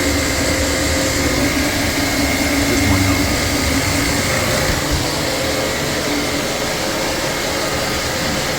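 Refrigerant recovery machine running steadily during refrigerant recovery, a continuous motor-and-fan drone with a faint high steady whine.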